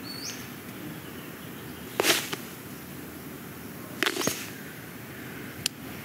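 Animated-film Foley and sound effects of toys moving: a short rising squeak at the start, then two sharp swishing snaps about two seconds apart, and a small click near the end.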